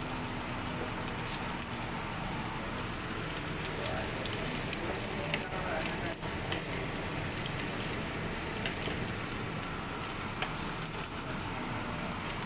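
Rib eye steak frying in hot oil in a pan: a steady sizzle with scattered sharp pops of spitting fat.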